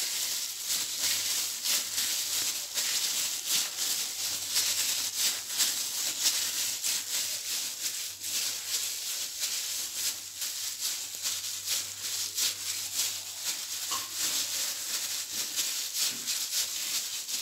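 Thin disposable plastic gloves crinkling and rustling as gloved hands press and mould minced meat around a boiled egg: a dense, steady crackle of many small clicks.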